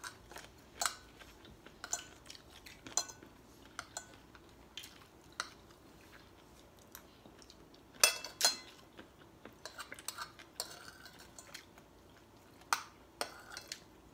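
Forks and spoons clinking and scraping on dinner plates while people eat, in scattered short clinks, the loudest two coming close together a little past the middle.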